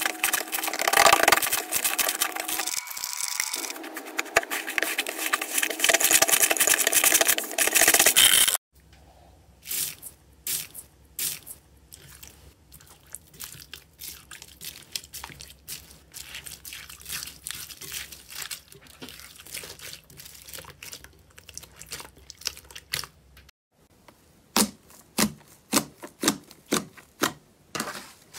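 Hands squeezing an inflated yellow slime: a loud, dense crackling of air bubbles popping, which cuts off suddenly about eight and a half seconds in. Then a finger pushing through slime full of foam beads gives quiet scattered crunchy clicks. Near the end a thick purple slime gives a run of sharp pops, about one a second.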